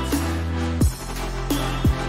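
Electronic background music with a heavy bass line and a steady beat of deep drum hits.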